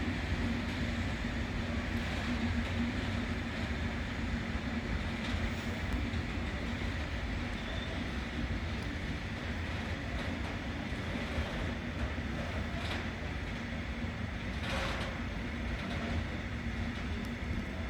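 Freight train of Eas open wagons rolling by steadily, a continuous rumble with a low steady hum. A short hiss comes about fifteen seconds in.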